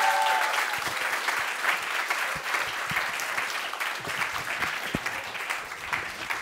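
Audience applauding in a hall, many hands clapping, with a brief voiced cheer at the start; the applause slowly dies down toward the end.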